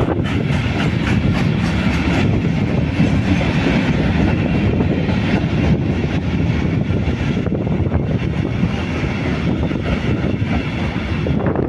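Freight train of sliding-wall covered wagons rolling past at steady speed: a continuous rumble of steel wheels on the rails, with scattered light clicks.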